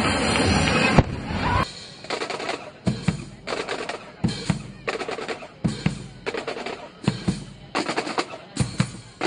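Music with a drum beat, sharp hits about every 0.7 s. It opens under a dense, loud rushing noise that cuts off after about a second and a half.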